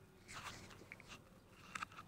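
Faint, soft scraping and a few light clicks of a metal ladle scooping thick béchamel sauce out of a glass bowl.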